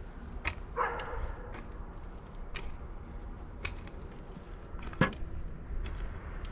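Sharp knocks about once a second, the loudest about five seconds in. A short pitched yelp-like call comes about a second in.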